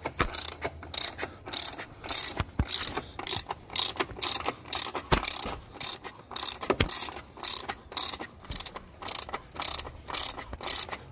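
Ratchet wrench clicking in an even run of about three clicks a second as it turns the forcing screw of a puller. The puller is drawing the vacuum pump cap out of the engine, and the cap is coming free.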